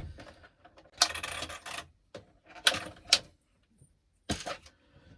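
Plastic clicks and rattles of an RC truggy with an all-plastic chassis being handled. A rattling scrape comes about a second in, two sharp clicks near the middle and a short rattle near the end.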